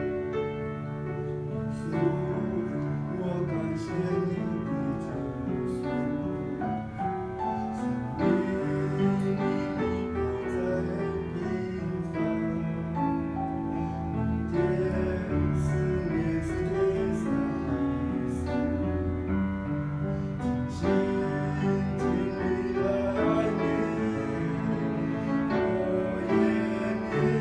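Piano hymn accompaniment, chords with sustained low notes underneath, changing every second or two.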